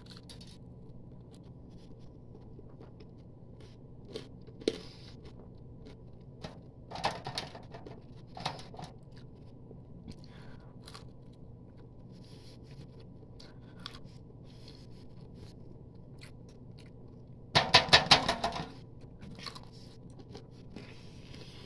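A person chewing and biting into a chicken wing: scattered soft crunches, tearing and mouth clicks. There is a louder cluster of rapid sounds about three-quarters of the way through.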